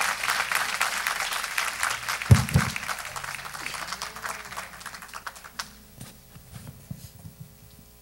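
Congregation applauding, the clapping fading away over about five seconds, with a single heavy thump about two seconds in and a few scattered claps after it.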